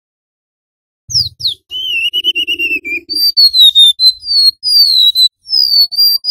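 Golden-bellied gerygone singing high, fluty whistles: about a second in, two quick downslurred notes, then a wavering trilled note, then a run of sweet falling whistles.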